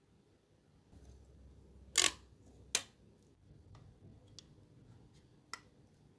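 Small hand tools working on a model car's parts: two loud, sharp clicks or snips about two seconds in, then a few fainter ticks spread over the rest.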